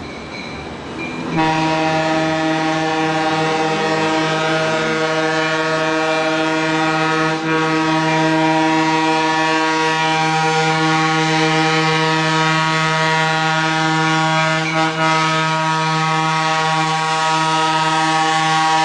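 Diesel locomotive's air horn sounding one long continuous blast that starts about a second and a half in, dipping briefly twice.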